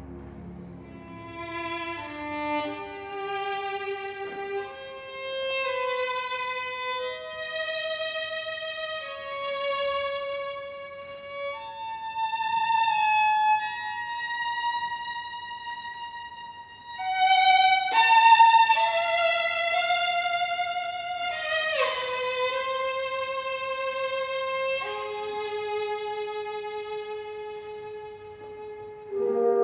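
Violin playing a slow passage of long, sustained notes with vibrato. A little past halfway the notes turn louder with sharp accented attacks, one of them sliding downward.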